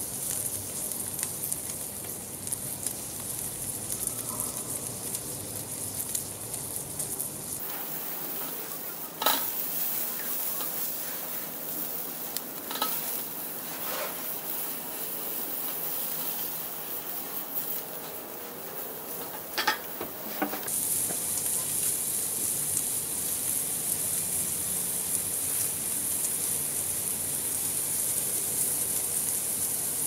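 Pork chops sizzling steadily on a stainless-steel grill grate over hot charcoal. A few sharp metal clinks in the middle come from a spatula against the grate.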